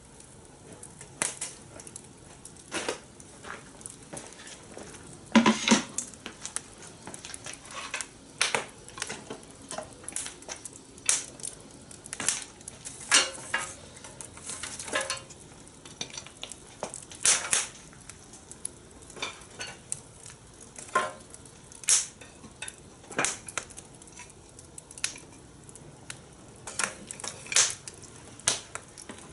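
Metal clinking and knocking on a fire-pit grill while corn is grilled: irregular sharp clicks and clinks, some ringing briefly, over a low steady sizzle.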